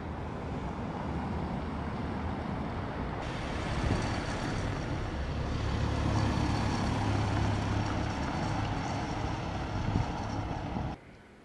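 Road traffic: a motor vehicle's engine and tyres rumbling on a cobbled street, growing louder partway through, then cutting off abruptly near the end.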